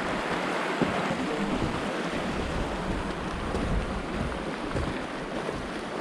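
Mountain burn rushing over rocks, a steady, even wash of water, with wind buffeting the microphone.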